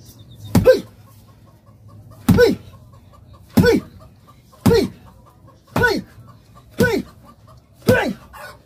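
Bare hand chopping down on a green coconut to split it open, seven blows about a second apart, each struck with a short shout that falls in pitch.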